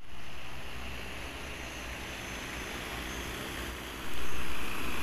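Large multirotor crop-spraying drone running steadily as it flies low over a rice field, its rotor noise getting clearly louder about four seconds in.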